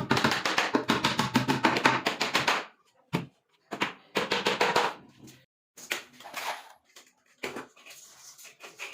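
Fast rhythmic percussion, about eight sharp strokes a second for the first two and a half seconds, then shorter runs of strokes broken by abrupt pauses.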